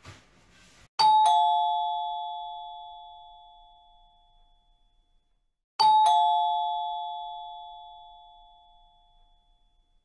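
Two-tone ding-dong doorbell chime, heard twice: a higher note then a lower one a quarter second apart, each ringing out and fading over about four seconds.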